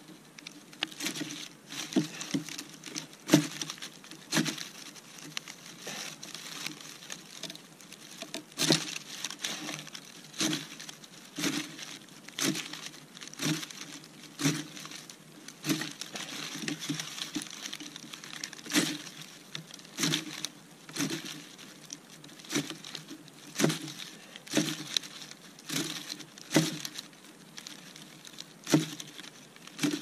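Dry birch bark and thin twigs crinkling and crackling under hands as a tinder bundle is packed, with irregular sharp crackles about once or twice a second.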